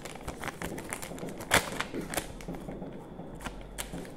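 Crinkling and crackling of a plastic ice-cream wrapper being unfolded and handled, a quick run of small crackles with one louder crackle about a second and a half in.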